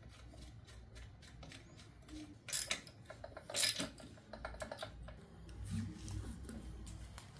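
Hand work on a bicycle engine kit's parts: light metallic clicks and handling taps, with two louder clinks a little after two and a half and three and a half seconds and a quick run of small clicks around four seconds.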